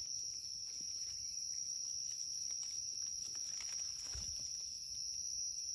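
Steady high-pitched drone of an insect chorus in forest, with a few faint rustles and a soft low thump about four seconds in.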